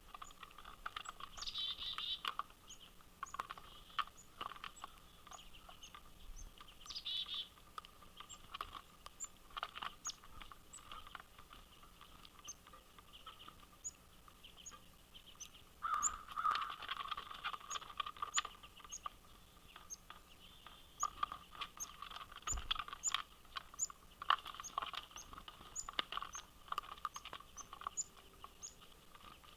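Small birds calling at a bird feeder: a steady series of short, high chip notes about once a second, with bursts of chirping and scattered clicks and taps.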